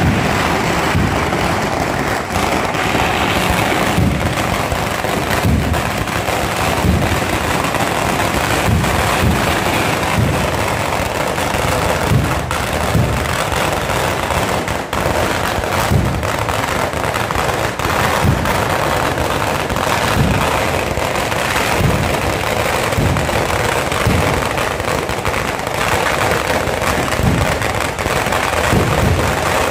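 Firecrackers going off in a continuous barrage: dense, rapid crackling with repeated deep booms, never letting up.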